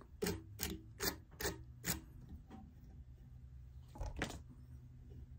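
A small brush stroked quickly through the synthetic fibers of a fly-tying brush body on a hook, five short scratchy strokes in about two seconds, then a brief pair of strokes about four seconds in.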